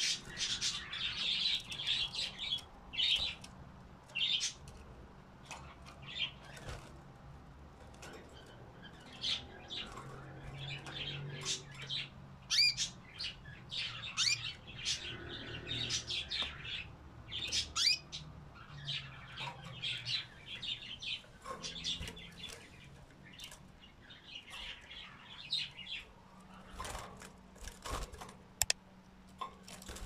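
Domestic canaries chirping and tweeting in their cage, short high chirps coming in quick runs with a few sliding notes. A few sharp clicks near the end.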